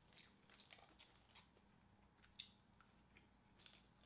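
Faint close-up chewing of a mouthful of fried hash brown, with soft scattered mouth clicks and a slightly louder crackle about two and a half seconds in.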